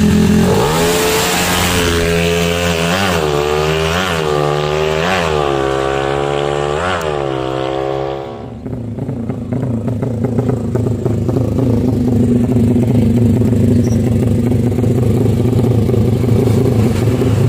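Drag-race motorcycle engine revved in a run of sharp throttle blips, the pitch jumping up and dropping back about five times. After a break about 8 seconds in, an engine runs steadily at a low, even speed.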